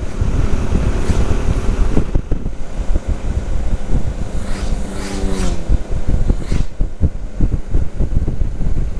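Motorcycle being ridden at speed, its engine running under heavy wind rumble on the microphone. About five seconds in, the engine note falls in pitch as the bike slows.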